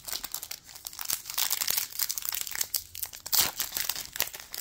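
Foil wrapper of a Panini Contenders football card pack crinkling with irregular crackles as it is handled and torn open.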